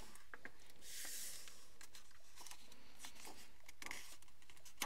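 A page of a large picture book being turned by hand: a soft paper swish about a second in, then light rustles and taps as the page settles.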